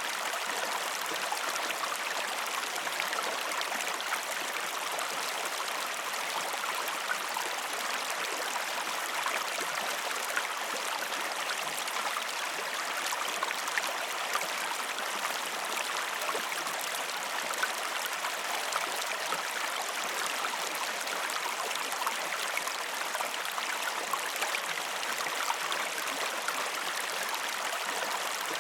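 Waterfall water rushing and splashing in an even, unbroken hiss.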